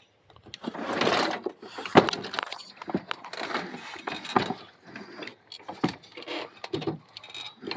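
Irregular clunks, knocks and rattles of a push mower being handled, with scraping between them and one sharp knock about two seconds in.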